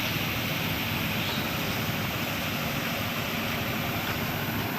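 Bus engine running steadily close by, a constant rumble with a broad hiss over it; no horn sounds.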